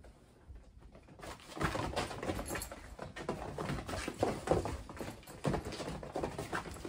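Kittens' paws pattering and scuffling on the fabric floor of a soft-sided pet playpen as they hop and wrestle, a quick irregular run of soft thumps and rustles starting about a second in.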